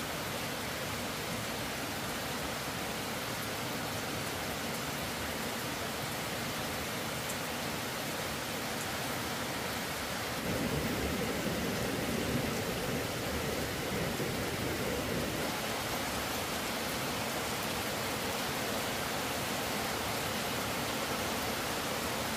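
Steady hiss of heavy rain, swelling fuller and louder for a few seconds near the middle.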